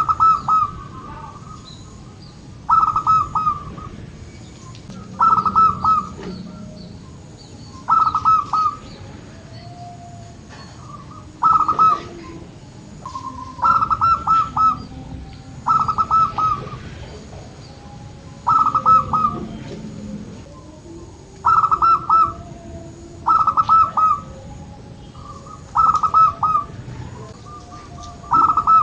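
Zebra dove (perkutut) singing: about a dozen loud phrases of quick, clipped coos, repeated every two to three seconds.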